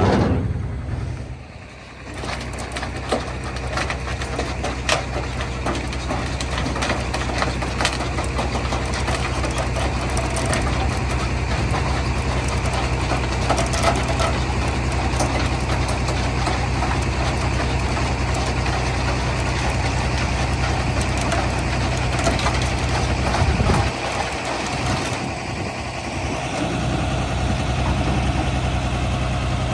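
Recovery truck's engine running steadily as its winch hauls a locked-up Land Rover Discovery 4 up the tilted bed, with scattered light clicks and clanks. The sound is quieter for the first couple of seconds. The engine's low note drops away briefly about three-quarters of the way through, then comes back.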